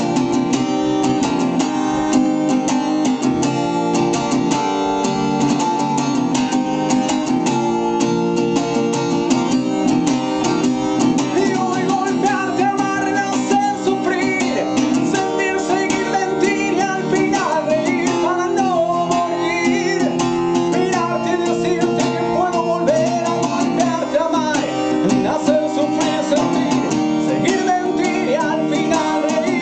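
Acoustic guitar strummed in a steady rhythm, with a capo on the neck; a man's singing voice joins the guitar a little over a third of the way in and carries on.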